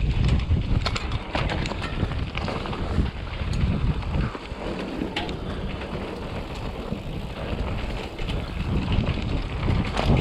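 Wind buffeting an action camera's microphone as a Raleigh Tokul hardtail mountain bike rides down a dirt downhill trail, with many sharp clicks and rattles from the bike over the bumps. The wind rumble eases for a few seconds around the middle, then picks up again.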